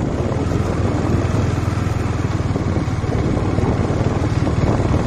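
Motorcycle engine running steadily while the bike is ridden slowly over a rough dirt road.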